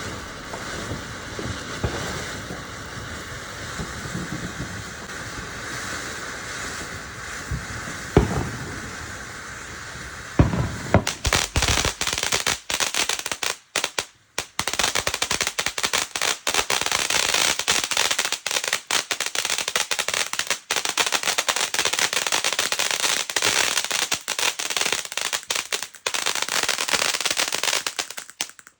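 Fireworks going off: a few scattered pops and a sharp bang about eight seconds in, then from about ten seconds a loud, dense run of rapid cracks, like a string of firecrackers, that stops suddenly at the end.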